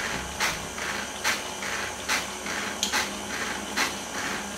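Stand mixer running its power-hub sifter attachment: a steady motor hum and hiss, with a sharp click from the sifter mechanism a little more often than once a second as flour and cocoa are sifted into the bowl.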